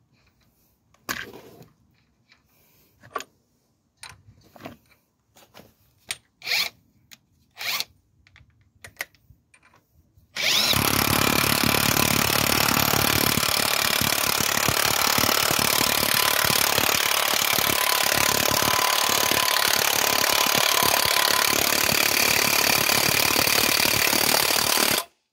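Scattered clicks and knocks of a socket and hand tools on the hub nut, then, about ten seconds in, a cordless impact wrench hammers without a break for about fifteen seconds, running down the axle nut on a new drive shaft, and stops suddenly.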